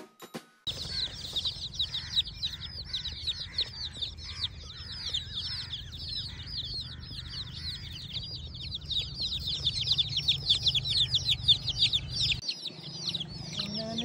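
Many baby chicks peeping together: a dense, continuous stream of short, high peeps that slide down in pitch, starting just under a second in. Beneath them runs a steady low rumble that cuts out shortly before the end.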